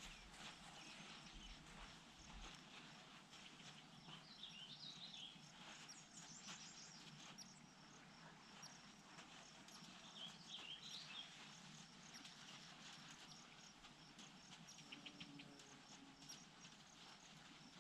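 Near silence: faint outdoor ambience with scattered faint ticks, and brief faint chirping twice, about four and ten seconds in.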